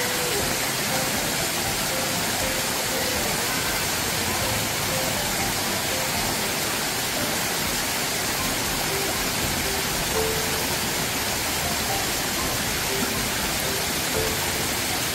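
Mountain stream rushing steadily, with faint background music playing over it.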